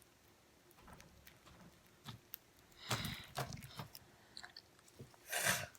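Slime packed with foam beads being squeezed and worked by hand, giving scattered sticky clicks and crackling pops. They grow denser and louder about three seconds in.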